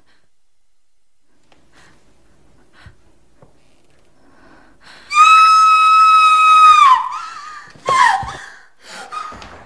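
A woman screams in fright: a long, high scream held steady for about two seconds, ending with a drop in pitch, then a second shorter scream sliding downward about a second later. Quiet before the scream, with a few faint ticks.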